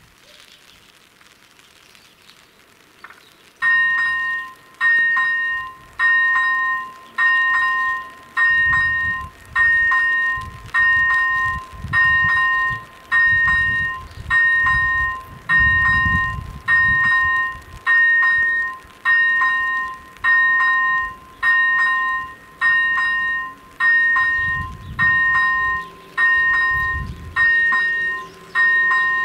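Electronic level-crossing bell (AŽD ZV-01 e-bell) starts about three and a half seconds in, ringing a steady ding roughly once a second while the red warning lights flash. It is the crossing warning that a train is approaching.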